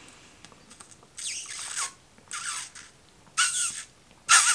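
Sucking hard through a drinking straw from a plastic cup: four short slurps about a second apart, each a hissy rush of air and liquid with a squeaky whistling tone.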